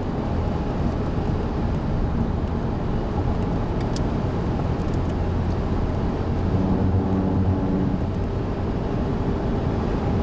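Car driving at highway speed, heard from inside the cabin: steady tyre and engine noise, with a low hum coming through for a couple of seconds a little past the middle. A single small click about four seconds in.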